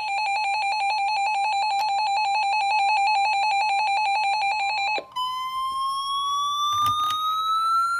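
Electronic alert tones: a rapidly pulsing buzzer-like tone for about five seconds, then a tone that glides slowly upward in pitch, with a couple of faint clicks near the end.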